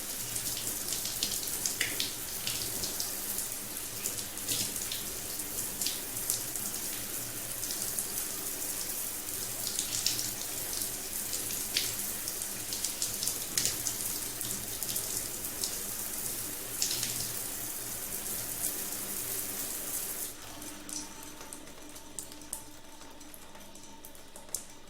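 Water falling from a rain showerhead: a steady hiss with scattered splashes. About twenty seconds in the flow stops, leaving a few faint drips.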